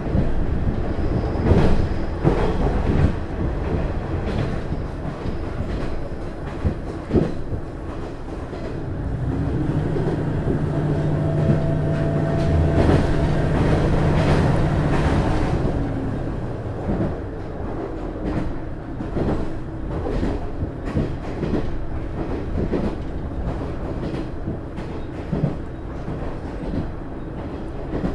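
Onboard running sound of a JR East KiHa 110 series diesel railcar, its DMF14HZA diesel engine and its wheels clicking over rail joints. A steady engine drone grows louder in the middle, then falls back after several seconds.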